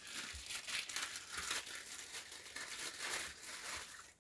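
Packaging crinkling and rustling as it is handled, a steady run of small crackles.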